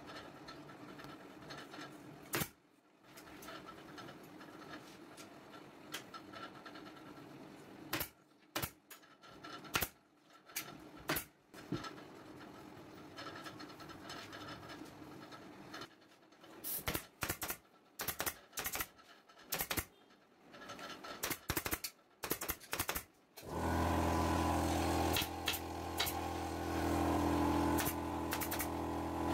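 Pneumatic upholstery staple gun firing into a wooden sofa frame, sharp clacks coming singly and in quick irregular clusters. About 23 seconds in a steady low hum starts abruptly, with more staple shots over it.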